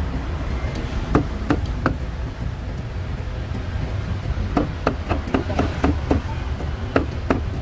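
Cleaver chopping grilled meat on a chopping block. Three separate chops, then a quick run of about eight, then two more, over a steady low rumble.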